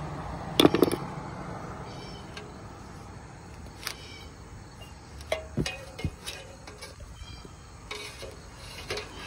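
Scattered sharp knocks and clicks: a loud double knock about half a second in, one at about four seconds, a quick cluster between five and six seconds, and a few lighter ones near the end.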